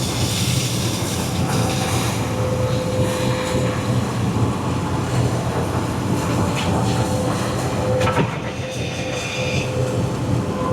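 Cat 320 EL excavator's diesel engine running steadily under hydraulic load as the bucket scoops in the ditch, with a steady whine over the rumble. A few knocks come about eight seconds in.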